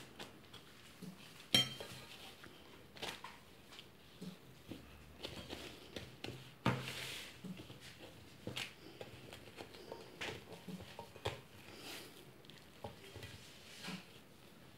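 Hands folding and tucking buttered warqa pastry sheets around a round metal baking pan: quiet, scattered rustles of the pastry and light taps and clinks against the pan.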